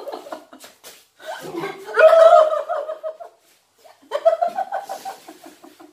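Young women laughing in three spells, loudest about two seconds in, with the last a quick run of short ha-ha pulses.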